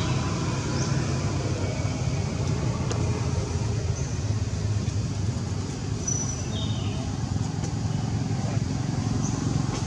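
Steady low outdoor rumble, like distant traffic, with a few short high chirps or squeaks every couple of seconds.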